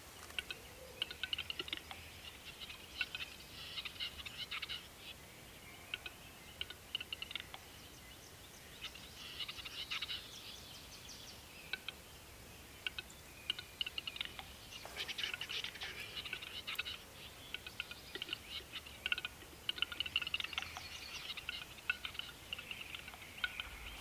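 Western capercaillie cock's display song: bursts of dry clicks that run together into a scratchy, scraping whetting phrase, repeated several times.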